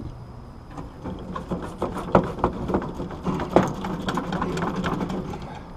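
Hands working stiff electrical wires and fittings at an AC condenser's contactor: a run of irregular clicks, taps and scrapes that starts about a second in and thins out near the end.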